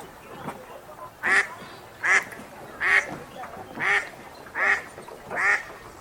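Wild duck quacking in a steady series, six loud quacks about one every 0.8 seconds starting about a second in, with fainter calls behind.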